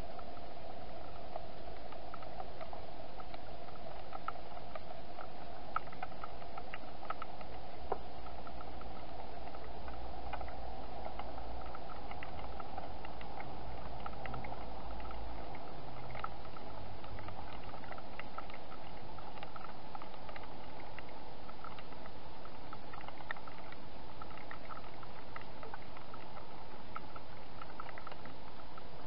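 Hedgehog feeding, with many small, irregular clicks of chewing over a steady hiss.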